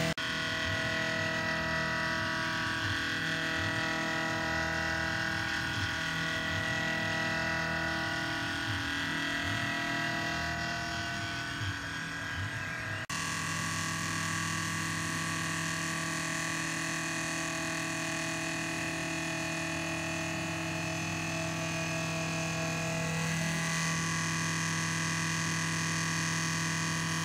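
Small machine-tool motors running steadily with a whine of several steady tones, typical of a benchtop CNC machine's stepper motors and spindle at work. The sound changes abruptly about halfway through, as if the footage cuts to another machine.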